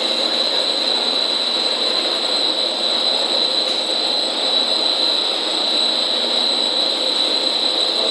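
Dog-chew extrusion production line running: a steady mechanical din of extruder motors and drives with a constant high-pitched whine over it.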